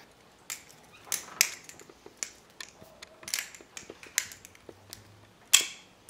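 Balisong (butterfly knife) being flipped through a full twirl, a throw and a catch: irregular light clicks and clacks of the handles swinging on their pivots and meeting. A short, louder noise comes just before the end.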